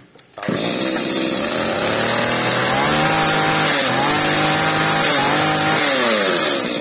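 Two-stroke engine of a Komatsu brush cutter starting about half a second in and running, with the throttle squeezed and released so that it revs up and drops back several times.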